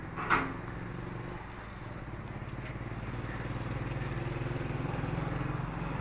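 An engine running steadily with a low, pulsing hum. A short, sharp, loud sound comes about a third of a second in.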